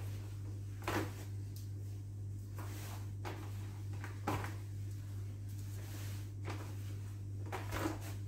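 Bare feet stepping up onto and down off a plastic folding step stool on a wooden floor: a series of soft knocks and thumps, the loudest about a second in, about four seconds in and near the end. A steady low hum runs underneath.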